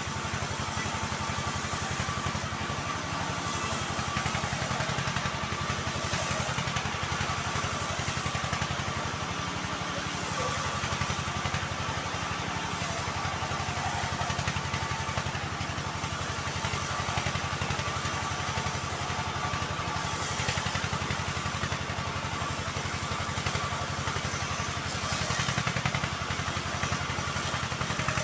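Homemade bandsaw mill running steadily: an even, engine-like drone with a thin steady whine above it.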